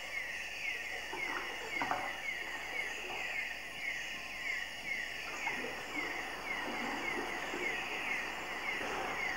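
Rainforest animal chorus: a steady high insect buzz under a short falling chirp repeated evenly about three times a second, with a faint knock about two seconds in.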